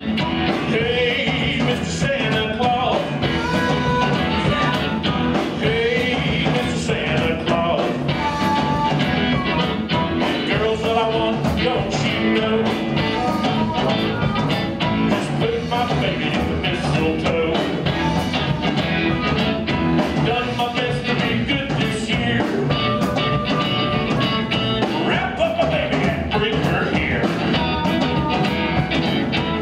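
Live blues band playing an instrumental opening with a steady beat: electric guitar and cupped harmonica over bass and drums.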